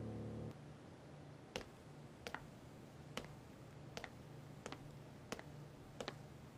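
Slow footsteps on a hard floor: faint, sharp clicks at an uneven pace of about one every three-quarters of a second.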